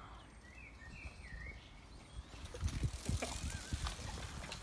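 A bird chirps a few short, curving calls over a low outdoor rumble. About two seconds in, wind starts buffeting the microphone with gusty rumbles and hiss, mixed with the rolling noise of a bicycle being ridden.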